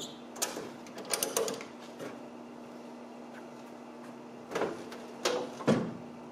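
Ratchet strap clicking in the first second or so. Then, near the end, the old pickup's steel tailgate is swung up and shut with a couple of knocks and a final heavy clunk as it meets the latches.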